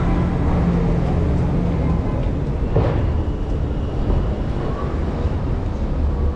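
City street traffic: a steady low rumble of vehicle engines, with an engine's hum standing out in the first two seconds and a short sharp sound about three seconds in.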